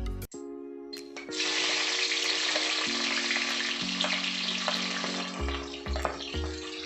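Hot cooking oil sizzling in a pan as an ingredient is dropped in; the sizzle starts suddenly about a second in and then runs steadily. Background music with held notes plays underneath.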